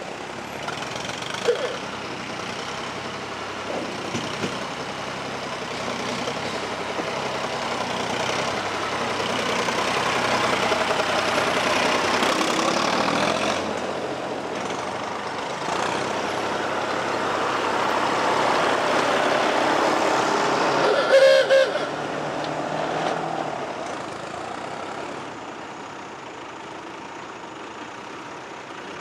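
Vintage Fordson and Massey Ferguson tractor engines running as the tractors pull one after another up out of a river ford, growing louder as each climbs close by and fading near the end. A short sharp knock stands out about 21 seconds in.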